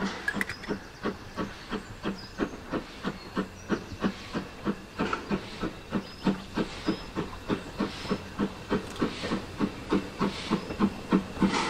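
Ivatt Class 2MT 2-6-2T two-cylinder tank steam locomotive working under steam, its exhaust chuffing in an even rhythm of about four to five beats a second and growing louder as it approaches.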